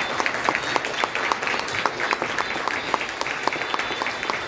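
An audience of children clapping and applauding, many quick hand claps in a steady patter.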